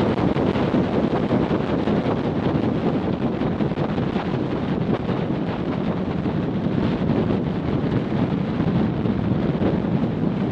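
Loud, steady wind buffeting the microphone of a GoPro camera strapped to a macaw in flight.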